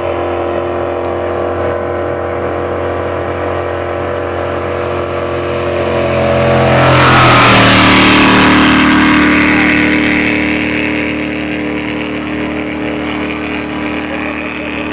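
Straight-piped jet boat running at full throttle, approaching and passing close by. The engine note grows louder, drops in pitch as the boat goes past about seven seconds in, then fades as it runs away. A rush of spray from its rooster tail is loudest at the pass.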